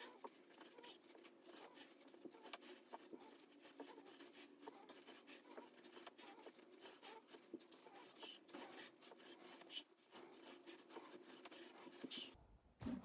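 Faint rustling and soft irregular taps of a person exercising, from clothing moving and feet on the floor, over a low steady hum.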